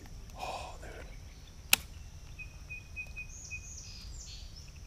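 Quiet woodland backwater ambience with birds chirping faintly. A single sharp click cuts through at about a second and a half in.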